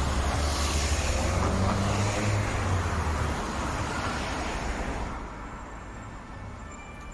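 Heavy vehicle engine running with a deep rumble that drops away about three seconds in, while the remaining noise fades further about five seconds in.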